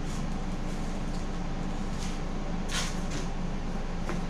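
Steady low machine hum in a workshop. About three seconds in comes a short scrape as tools are handled on a plywood workbench, followed near the end by a light click.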